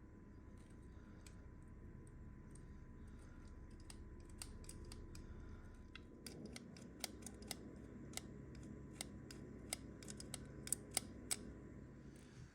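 Faint, irregular clicking and tapping of small parts being handled and fitted on a KitchenAid Artisan mixer's motor while its carbon brushes are reinstalled. The clicks come quicker and sharper in the second half, over a low steady background.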